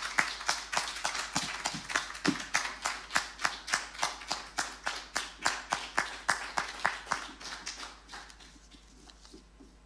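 Applause from a small audience, the individual claps distinct, thinning out and fading away about eight seconds in.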